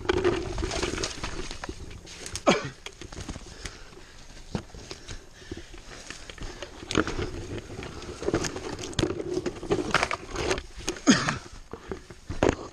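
Leaves rustling and twigs cracking as cut brush and branches are grabbed and dragged by hand, with repeated sharp snaps scattered throughout.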